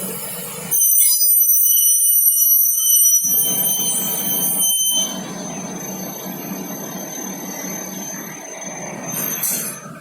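Aluminium cutting saw blade cutting aluminium with a loud, high-pitched squeal for the first few seconds. The squeal fades while the saw runs on with a lower, rougher hum, and there is a short hiss near the end.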